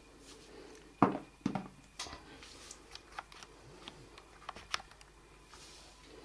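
Handling noise from a smartphone being held and its buttons pressed: a knock about a second in, a second one half a second later, then scattered light clicks and taps.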